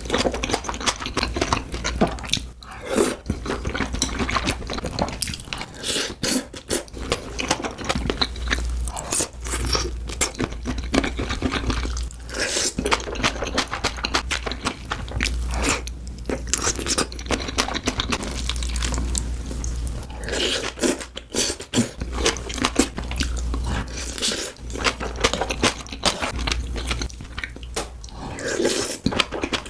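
A person eating close to the microphone, with continual irregular crunching and chewing sounds over a low rumble.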